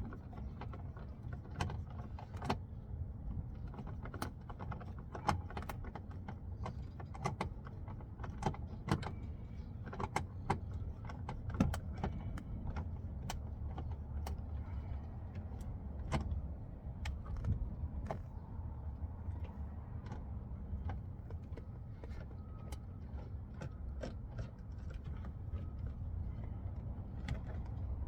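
Scattered sharp clicks and rattles of hands and tools working a truck's interior door trim panel loose, over a steady low rumble.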